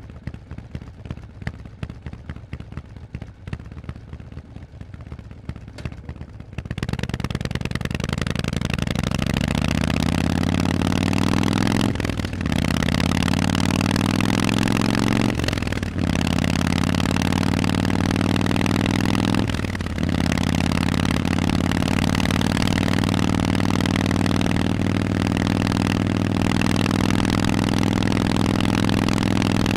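Harley-Davidson Forty-Eight's 1200 cc V-twin through Vance & Hines exhausts, idling with a low pulsing beat, then about seven seconds in pulling away and revving up through the gears. There are three brief dips at the gear changes, and after the last it settles into a steady cruise.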